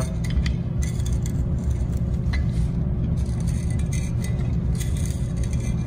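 A steady low hum of background machinery, with faint scattered metallic clicks and clinks as the stainless steel band heaters are worked loose around the glass still body.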